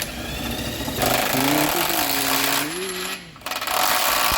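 A handheld power tool runs in two bursts, the first about a second and a half long and the second about a second, with a short stop between them. A man hums a tune over the first burst.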